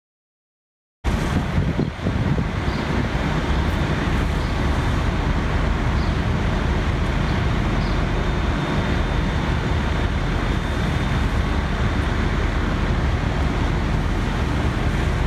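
Steady low rumble of fire-truck diesel engines running, starting abruptly about a second in.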